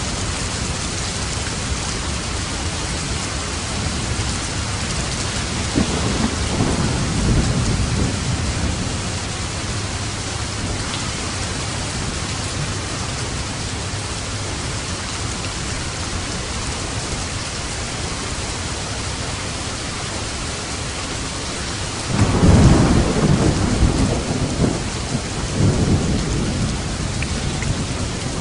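Steady rain with rolls of light thunder: a low rumble swells and fades a few seconds in, and a louder clap of thunder breaks near the end and rumbles on for several seconds over the rain.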